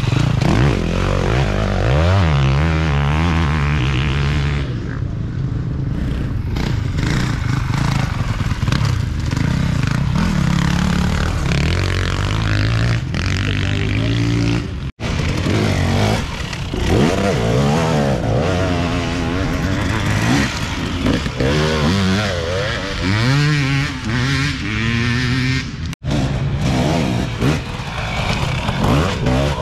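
Dirt bike engines revving up and down as riders accelerate and shift along an enduro trail, the pitch rising and falling over and over. The sound cuts out abruptly for an instant twice, once about halfway and once near the end.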